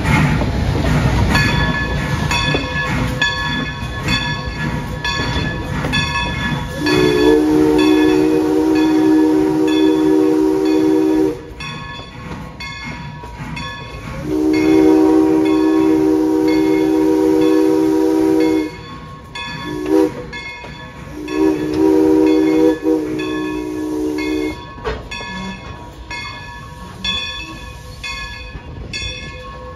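Steam locomotive No. 40's chime whistle blowing the grade-crossing signal: two long blasts, a short one, then a long one, starting about seven seconds in. A steady rhythmic clicking runs underneath.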